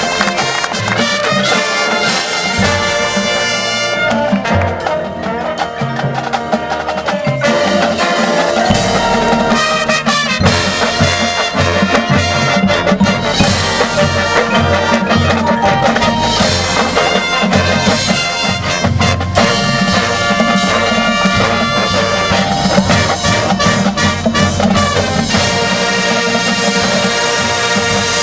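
Marching band playing, with brass (trumpets and trombones) carrying the music over drumline percussion.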